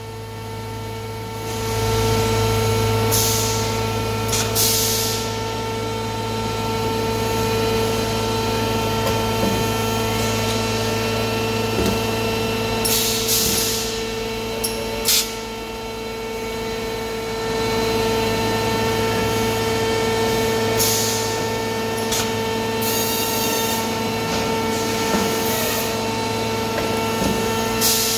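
Concrete block off-packing (cubing) machine working: a steady hum of motors with several tones, broken every few seconds by short hisses of compressed air as the pneumatic cylinders on the gripper head actuate, with a couple of sharp clicks about midway.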